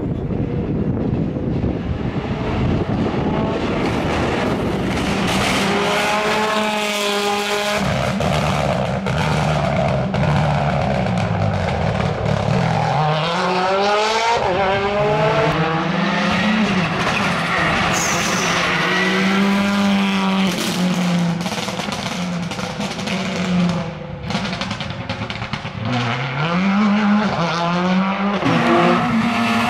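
Rally car engines driven hard on a closed stage. The revs climb steeply and drop again and again with gear changes and braking, several times over.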